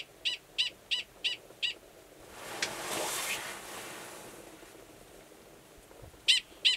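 Male Gunnison's prairie dog giving a mating call, which sounds the same as its alarm call: a rapid series of short, high-pitched barks, about three a second. The barks stop after about two seconds and start again near the end. In the gap a rushing noise swells and fades over about two seconds.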